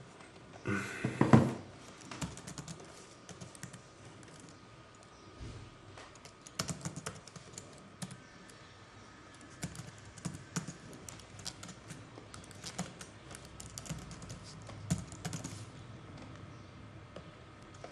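Typing on a computer keyboard: uneven runs of key clicks as text is entered. A brief louder noise comes about a second in.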